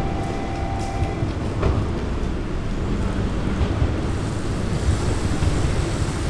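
JR Kyushu 103 series electric multiple unit approaching slowly along the track, giving a steady low rumble. A thin high tone stops about a second in, and there is a faint clack a little later.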